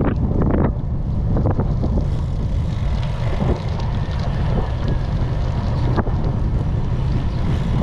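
Wind buffeting an action camera's microphone while cycling: a steady low rumble, with a few sharp knocks in the first second and a half and one more about six seconds in.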